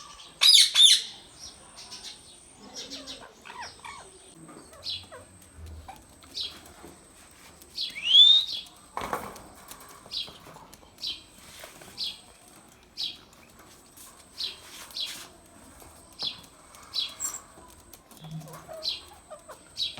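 Indian ringneck parakeet calling: a loud call about half a second in, a curving whistle around eight seconds, and short high chirps repeated about once a second in between.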